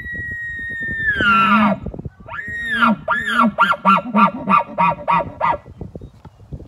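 Imitation elk bugle blown on a diaphragm mouth call through a full-size bugle tube: a long high whistle that breaks down into a low grunt about a second and a half in, followed by a run of about ten quick chuckles, roughly three a second.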